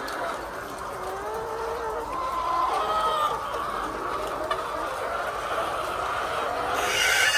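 A flock of laying hens clucking and calling over one another in a steady chorus. A louder, higher call breaks in near the end.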